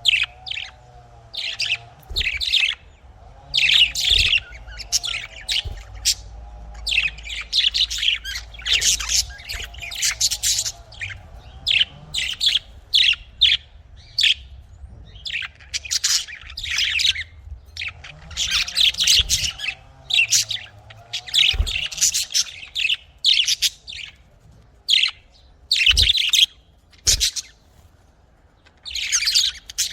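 Pet budgerigars chirping and chattering in rapid bursts of short, high notes, with brief pauses between bouts and a few soft knocks.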